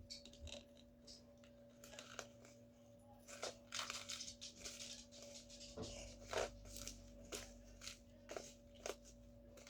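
Slime being squished and pulled by hand: faint, irregular crackles and small clicks, with a longer crackle about four seconds in.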